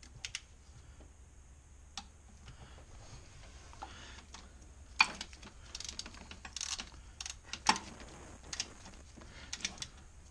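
Click-type torque wrench ratcheting on timing cover bolts, set to 18 foot-pounds: short runs of small clicks with a few louder single clicks about five and eight seconds in.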